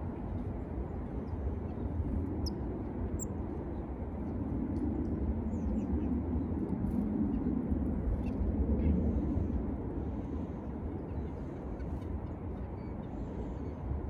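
Steady low outdoor rumble that swells in the middle, with a few faint, short high chirps from small birds.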